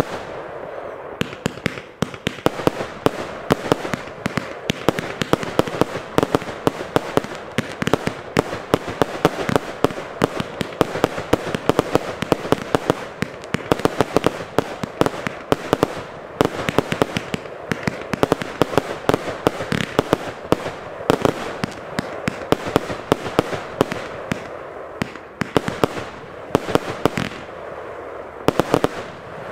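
A J-Fireworks Golden Dream 45-shot, 25 mm firework battery firing shot after shot, with a dense run of pops and crackling from the bursting strobing willow stars that keeps going without a break.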